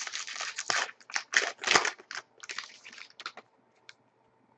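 Trading-card foil pack wrappers crinkling and cards being handled and slid through the fingers: a quick, uneven run of rustles and crisp clicks that stops about three and a half seconds in.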